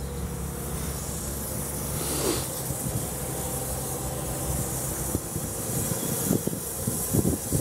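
South African Railways-style 2-6-2 miniature steam locomotive moving slowly past, with a steady hiss of steam. Irregular low knocks and clanks come in over the last couple of seconds.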